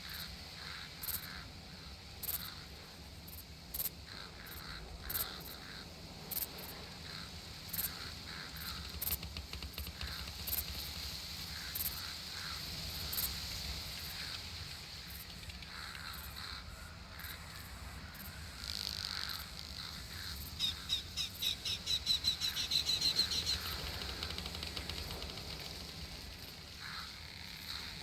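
Summer outdoor nature ambience: a steady high insect drone with regular short chirps about once a second, and birds calling. A little past two-thirds of the way through comes a quick run of chirps, about eight a second, growing louder before it stops.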